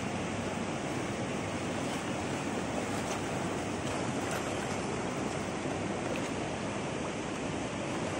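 Fast-flowing river rushing past over rapids: a steady, even wash of water noise.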